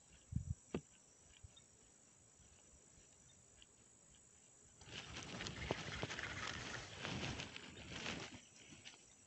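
A few short low thumps just after the start. From about halfway, loud irregular rustling and crackling with many sharp clicks, which fits hand and sleeve rubbing against the phone as it is shifted.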